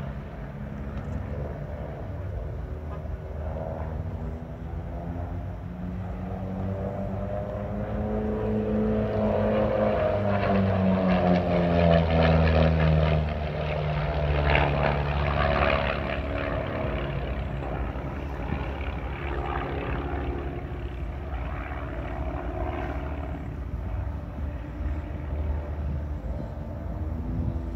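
Propeller-driven aerobatic airplanes flying past in formation with a steady engine drone. The drone grows louder and drops in pitch as they pass, about halfway through, then carries on more quietly.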